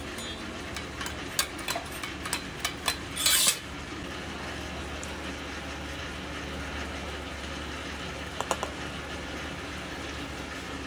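Metal spatula clicking and scraping on a round metal griddle while a griddle cake (麥仔煎) is worked: a quick run of sharp clicks ending in a short, loud scrape about three seconds in. After that a steady low hum continues, with a few light taps near the end.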